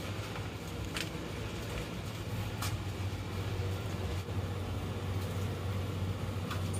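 Steady low mechanical hum, like an engine or machinery running, with a few faint clicks.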